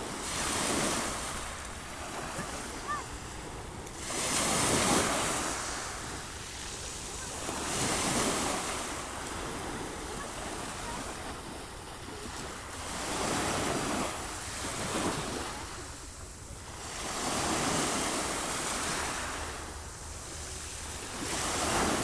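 Sea waves breaking and washing up the shore, swelling and falling back every three to five seconds, with a steady hiss of water between the breakers.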